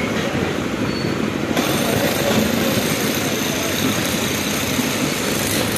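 An express train's passenger coaches rolling past close by: a steady, loud rumble and clatter of wheels on the rails, with more hiss about a second and a half in.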